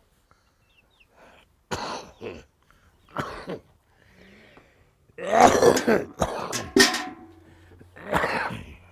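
Coughing: a few separate harsh coughs, then a louder fit of coughing and throat clearing about halfway through, and one more cough near the end.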